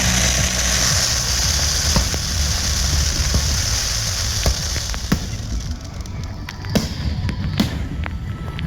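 Aerial fireworks display: a dense crackling hiss of bursting shells for about the first five seconds, then several separate sharp bangs over a low rumble.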